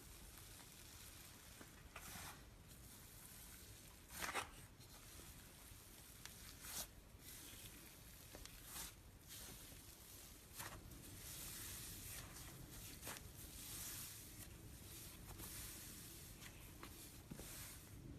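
Slime being stretched and squished by hand: faint sticky crackling and tearing, with a few louder pops scattered through it.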